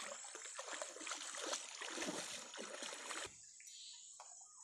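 Water sloshing and splashing as a person wades through a shallow stream, in uneven surges, stopping abruptly about three seconds in.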